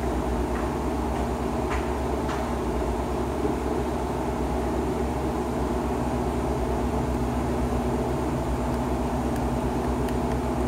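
Steady machine hum with a constant low tone, with a few light clicks in the first couple of seconds as the small camera is handled.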